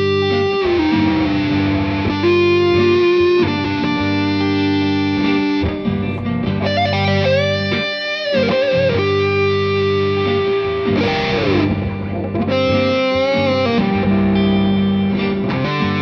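Squier Bullet Stratocaster electric guitar playing a slow lead line of long held notes with several string bends, over a steady low accompaniment of sustained chords.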